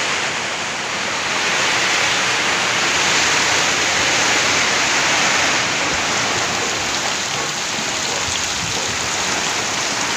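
Heavy typhoon rain pouring down, a dense, steady hiss that swells slightly a couple of seconds in and eases again.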